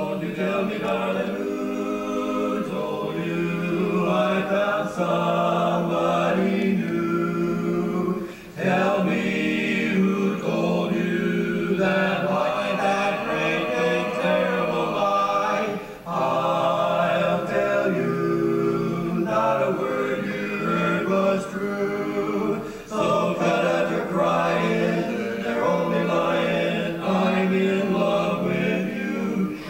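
Male barbershop quartet singing a cappella in four-part harmony, starting at the outset, with short breaks between phrases about 8, 16 and 23 seconds in.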